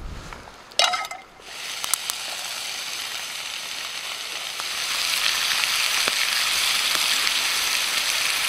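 Bacon frying in a skillet: a sizzle that starts faintly, grows louder over the first few seconds and then holds steady. A short sharp sound comes about a second in.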